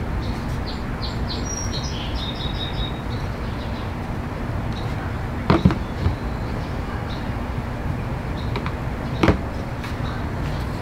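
Two sharp knocks as a plastic carburetor primer-bulb plate is handled and set down on a rubber bench mat, about five and a half and nine seconds in, over a steady low rumble. A few short high bird chirps sound in the first few seconds.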